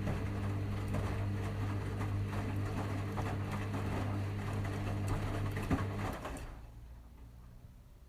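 Washing machine on a delicates cycle, its motor humming steadily while the drum turns and the load tumbles with a rattle of small clicks. The drum stops about six seconds in.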